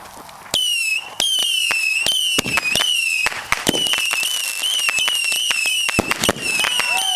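Fireworks finale going off about half a second in: a shrill, wavering whistle that keeps restarting, punctuated by many sharp pops and bangs.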